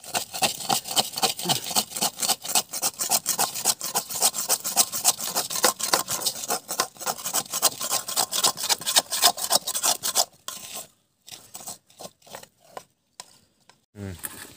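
Metal spatula scraping and stirring ant eggs around a metal wok in quick, repeated rasping strokes. The stirring stops about ten seconds in, followed by a few scattered scrapes.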